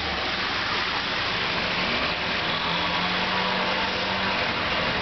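Steady rain falling on the site, with a machine engine running underneath as a faint, steady hum.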